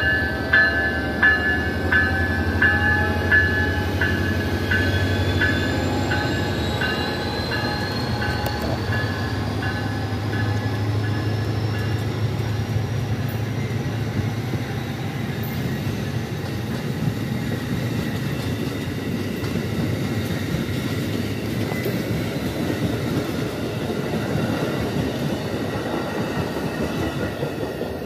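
Amtrak ALC-42 Charger diesel-electric passenger locomotive passing, its engine drone fading as it moves away. A bell rings about one and a half strokes a second and dies out within the first dozen seconds. Then the passenger cars roll by with steady wheel and rail noise and some clacking over the rail joints.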